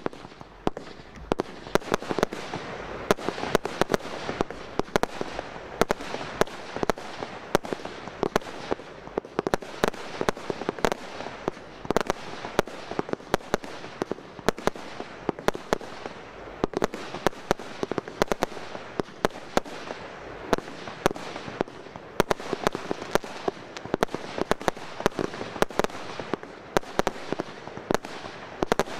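Fireworks display: a dense, irregular stream of launch thumps and sharp bangs from small aerial shells bursting, over a continuous crackle of crackling stars.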